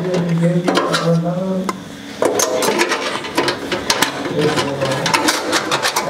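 Clicks and light knocks of a motherboard being set into a desktop PC case, with a man's low voice sounding underneath.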